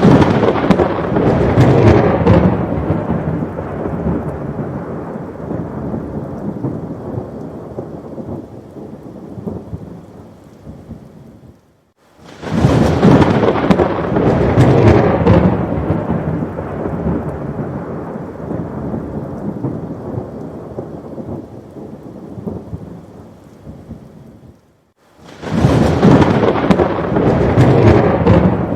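Thunderstorm recording: a loud rolling thunder rumble over heavy rain comes in suddenly and fades over about ten seconds, then breaks off into a brief silence. The same cycle starts again twice, about every twelve and a half seconds, as a repeating loop.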